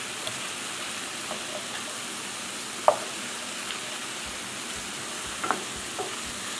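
Diced chicken, onion and celery sizzling in olive oil in a skillet, stirred with a spoon that knocks against the pan a few times, loudest about three seconds in.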